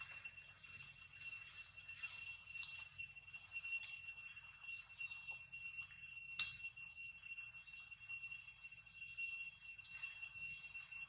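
Steady high-pitched insect trill from the undergrowth, unbroken throughout, with a few sharp clicks, the loudest about six and a half seconds in.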